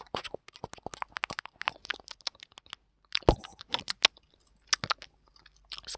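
Close-microphone ASMR eating sounds: a quick, irregular string of small crunching clicks, with a louder click about three seconds in.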